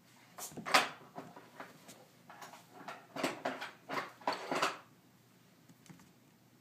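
A kitten's paws and claws scrabbling and thumping on a hardwood floor as it pounces, in a handful of quick bursts, the loudest about a second in. The bursts stop about five seconds in.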